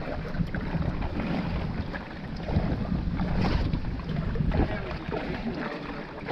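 Wind buffeting the microphone in a heavy, uneven rumble, with water sloshing and splashing against a small sailboat's hull.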